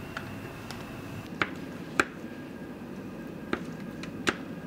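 Butter melting with chopped garlic in a hot frying pan, spitting with sharp pops every second or so over a steady low hiss.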